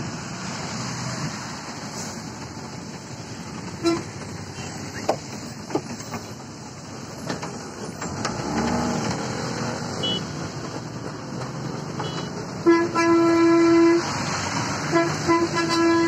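A vehicle horn honking over steady background noise: a short toot early, a long blast of over a second in the second half, then a few short toots near the end.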